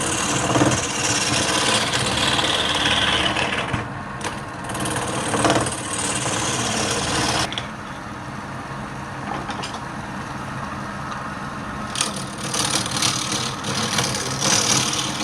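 Wood lathe running with a steady motor hum while a turning tool cuts the spinning wood. The cutting noise falls in pitch over the first few seconds, drops away about halfway through, and starts again near the end.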